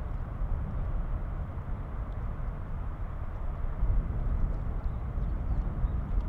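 Wind rumbling on the microphone outdoors by open water: a steady low rumble that swells and eases irregularly.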